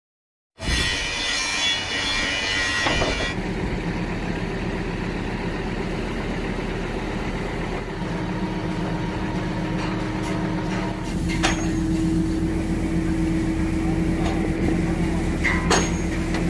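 Truck engine idling steadily, cutting in abruptly just after the start, with a few sharp knocks near the end.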